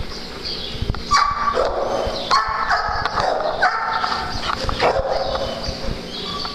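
Dogs barking, a run of short barks in about four bouts spread across the few seconds.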